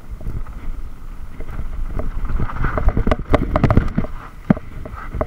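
Mountain bike riding over a dirt forest trail: wind rumbling on the microphone, with a run of rattling knocks from the bike jolting over rough ground about halfway through.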